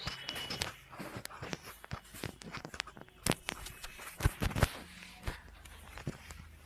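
Chiropractic back adjustment: hands working the patient's back make a run of sharp clicks and knocks, the loudest a little past four seconds in.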